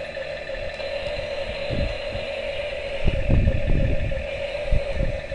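Small electric motor of a remote-controlled toy excavator, running with a steady whir. Low rumbling and clattering come in spells from about three seconds in.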